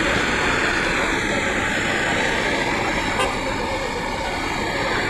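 Steady roaring street noise with a low traffic rumble and no distinct events; a faint click about three seconds in.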